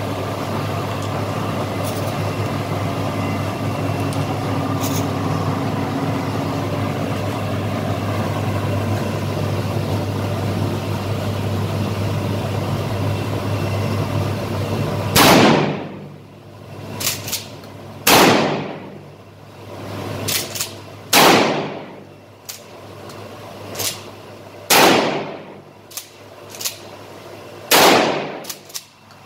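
A steady low hum, then, about halfway through, five shots from a pump-action shotgun firing Shooter shotgun shells, roughly three seconds apart, each echoing off the range walls. Fainter clacks between the shots are the pump action being cycled.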